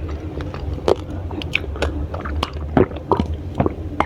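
Close-up chewing of crisp raw vegetables: sharp, irregular crunches two or three times a second over a steady low hum.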